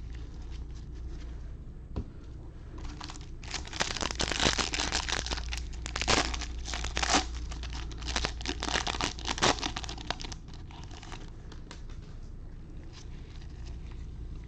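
Foil wrapper of a Bowman baseball card pack crinkling and tearing as it is opened, a dense run of crackling from about three and a half to ten seconds in.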